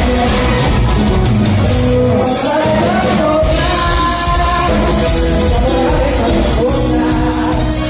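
A band playing a song, with a singer's voice over the instruments; the bass drops out briefly about two and a half seconds in.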